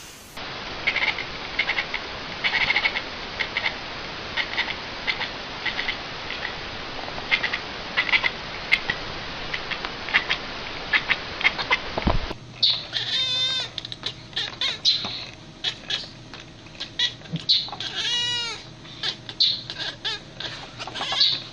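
Domestic cats vocalising in two clips. The first is a run of short, quick chirping sounds over a steady hiss. After a cut about twelve seconds in, the second is a series of wavering, warbling trill calls.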